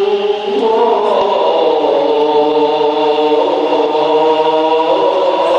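A muezzin singing the call to prayer (adhan) into a microphone, one male voice holding a long, drawn-out melismatic phrase that shifts pitch about half a second in and again near the end.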